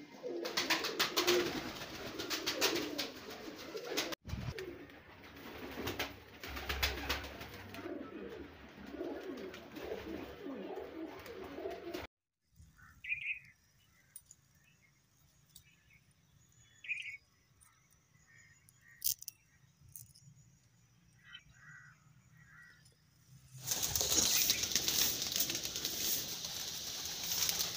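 Many domestic pigeons cooing together in a crowded loft, with scattered flapping of wings. After a cut about twelve seconds in, only a few faint chirps are heard, and a loud steady rustling noise starts near the end.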